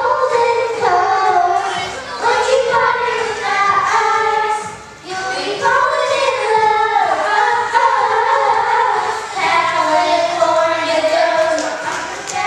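Young girls singing a song into handheld microphones, amplified in a large hall, with held and gliding notes and a brief breath pause about five seconds in.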